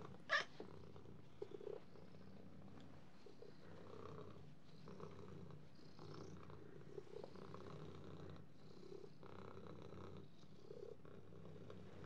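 A domestic cat purring, with one short, sharp squeal about half a second in that stands out above the purr.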